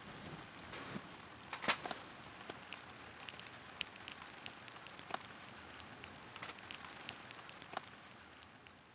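Light rain: scattered raindrops ticking irregularly over a faint steady hiss, dying away near the end.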